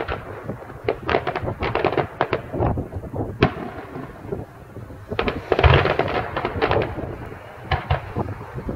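Fireworks display: a rapid string of bangs and crackles with low booming, thickest about five and a half to six seconds in.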